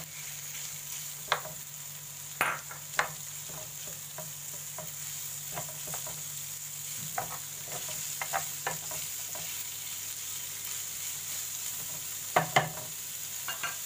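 Minced beef and onions sizzling in hot oil in a nonstick frying pan, stirred with a spatula. A few sharp knocks of the spatula on the pan stand out over the steady sizzle, a cluster in the first few seconds and a pair near the end.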